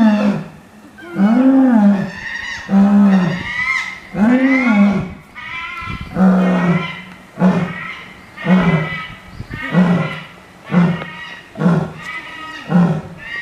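A lioness roaring. She gives a series of calls: a few long, arching roars about every 1.5 seconds, then shorter grunting roars coming about once a second.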